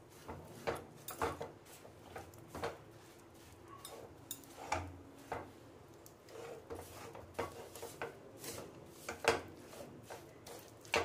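Wooden spatula stirring a thick mixture of chopped dry fruits and sugar syrup in a stainless steel kadhai, with irregular scrapes and knocks against the pan.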